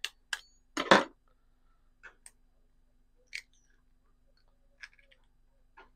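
An egg cracked on a knife blade: two sharp taps in the first second, then a few faint clicks and crackles as the shell is pulled apart by hand.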